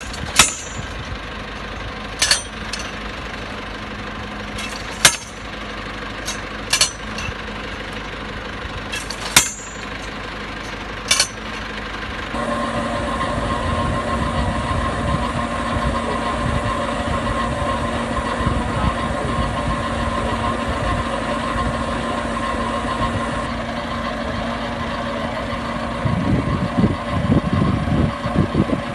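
Drilling rig's engine running, with six sharp metallic clanks about two seconds apart in the first half. Around the middle the engine rises to a louder, steady working note, and it turns rough and pulsing near the end.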